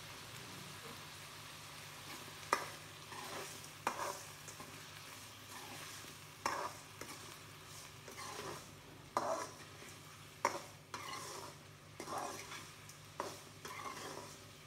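Chopped tomatoes and onions being stirred in a hot pan over a steady frying sizzle. The utensil knocks sharply against the pan about seven times, every second or two from a couple of seconds in, with a short scrape after each knock.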